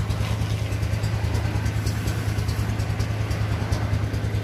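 Hino SG260TI tractor head's J08E-UF six-cylinder turbo diesel idling steadily, a low, even drone.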